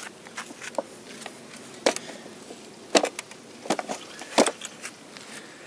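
Hammer blows on a flat tool driven into the sealant joint between the crankshaft bearing girdle and the block of a GM Ecotec 2.2 litre engine: about five sharp, irregularly spaced knocks with lighter taps between, breaking the glue seal to loosen the girdle.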